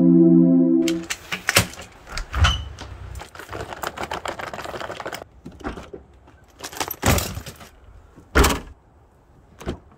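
Hard-shell rolling suitcase's wheels rattling over brick pavers, with footsteps, for about four seconds after a synth music cue ends. Then a few knocks and two loud thuds from handling at the back of a car.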